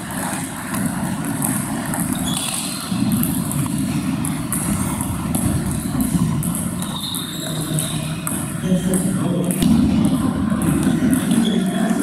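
Table tennis balls clicking off bats and tables in quick, irregular succession, from several games in play at once, over a steady low hum.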